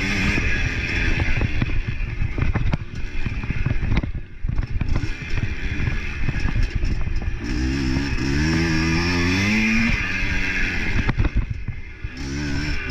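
Motorcycle engine running with a rattle, then revving hard with its pitch climbing steadily; the pitch drops and the engine pulls up again near the end.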